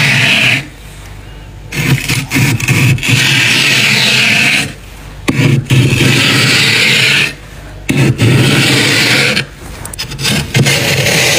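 Metal knife blade scraping thick frost off a freezer wall: about four long scrapes, each a second and a half to three seconds, with short pauses between them.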